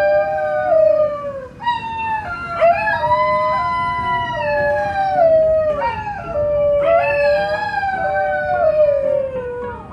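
Dingoes howling: a series of long, drawn-out howls that slide down in pitch as each one ends, with two voices overlapping at times.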